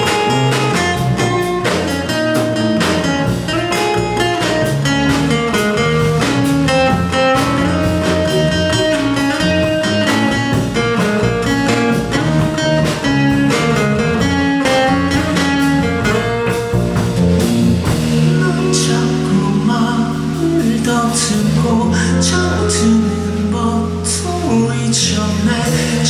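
Live band music: two acoustic guitars strummed and picked over electric bass and drums. About eighteen seconds in, the playing opens out into long held low bass notes with spaced cymbal hits.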